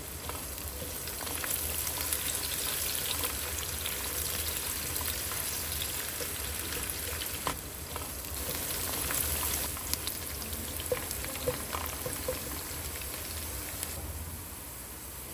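Food sizzling and crackling as it fries in oil in a pan, with a few light clicks.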